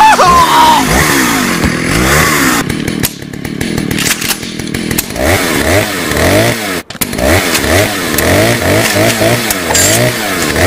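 Chainsaw engine revving up and down over and over, about two revs a second in the second half, with a brief break about seven seconds in.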